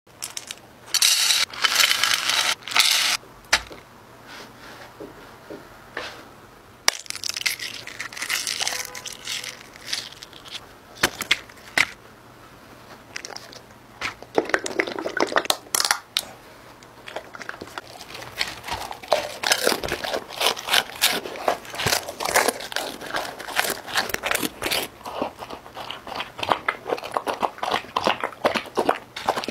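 Crinkling and rattling as dog food is put into glass dishes, then a dog eating from the dishes: a dense run of crunching and slurping clicks through the second half.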